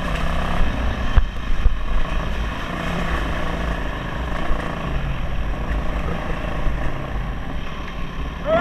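Dirt bike engine running while riding a rough dirt trail, under heavy low wind rumble, with a few thumps between one and two seconds in. A brief rising-and-falling pitched sound comes right at the end.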